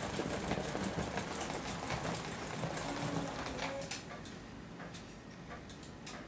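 Hornby 00-gauge live steam model locomotive running on the track with a hiss and a rapid small mechanical rattle, dying down about four seconds in.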